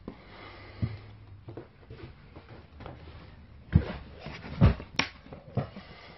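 A few dull knocks and thumps of handling and moving about in a small enclosed space, with a sharp click about five seconds in.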